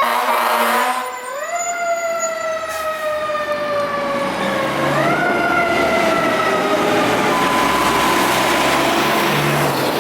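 Fire engine siren whose pitch rises quickly twice, about a second in and again about five seconds in, and slowly winds down after each rise, as a mechanical siren does. Truck engine and road noise build under it in the second half.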